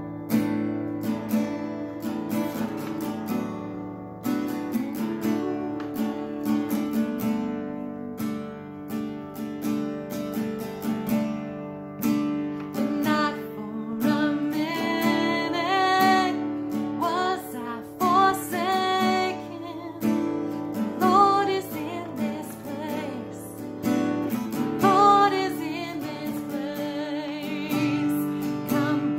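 Acoustic guitar strummed in a steady rhythm, with a woman singing over it from about halfway in.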